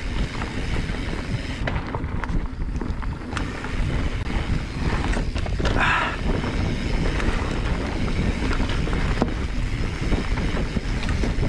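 Wind rushing over a GoPro action camera's microphone as a mountain bike rides over loose, dry dirt, the tyres on the dirt and the bike giving scattered clicks and knocks. A brief higher-pitched squeal comes about halfway through.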